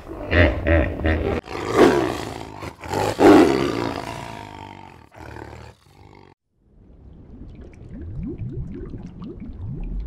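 Large wild animal vocalising: a few pulsed grunts in the first second and a half, then two loud, drawn-out deep roars around two and three seconds in that fade out by about six seconds. After a short gap, fainter low rising calls come near the end.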